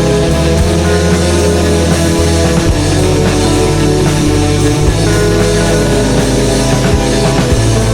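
Rock music with electric guitars and bass playing a loud, dense passage.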